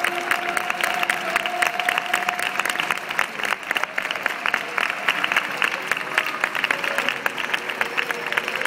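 Audience applauding, a steady run of dense claps, over background music.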